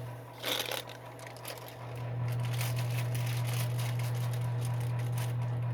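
Space heater's fan running with a steady low hum, weaker for the first second or so and then back up to a steady level. A brief rustle about half a second in.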